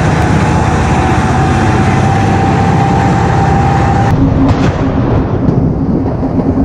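Tracked armoured artillery vehicle's engine running loudly as it drives away, with a thin steady whine over it. About four seconds in, the sound cuts abruptly to the engine running close by with a low, pulsing hum.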